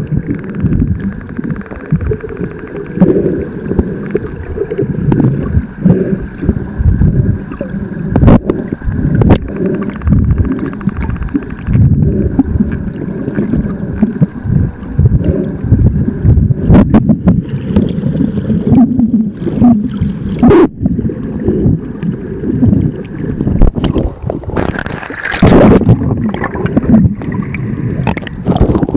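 Gusting wind buffeting the microphone over sloshing water, with scattered sharp knocks and a brief hissing splash near the end.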